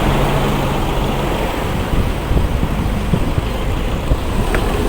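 Wind rushing over the microphone while riding a bicycle along a road, with road and traffic noise beneath it. A low steady hum sits under it for the first second or so.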